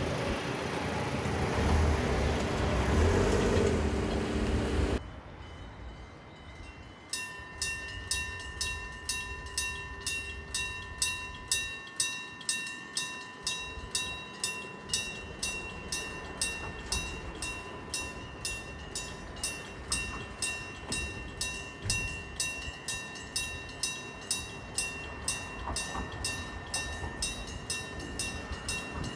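Railroad crossing warning bell ringing repeatedly at about two strokes a second, starting about seven seconds in. Before it, a train running past, cut off suddenly about five seconds in.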